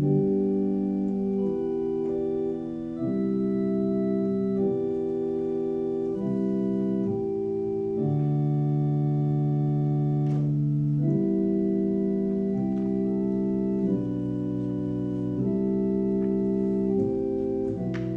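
Organ playing slow sustained chords, each held for a second or two before moving to the next.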